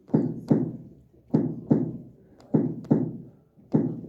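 Finger-on-finger percussion of the chest, struck in quick pairs about once a second, each tap ringing briefly. This is the resonant note (sonoridad) of normal air-filled lung.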